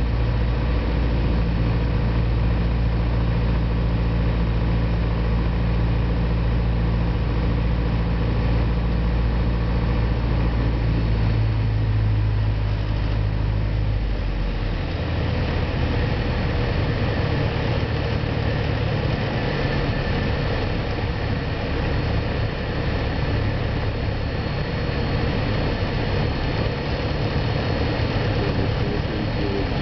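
Piper PA-28 Cherokee's piston engine and propeller running steadily in flight, heard from inside the cabin. About halfway through the engine note shifts and its deepest drone drops away.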